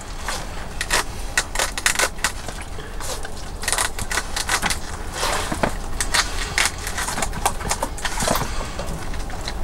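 Knife chopping fish into small pieces on a plastic cutting board: irregular sharp taps of the blade on the board, over a steady low hum.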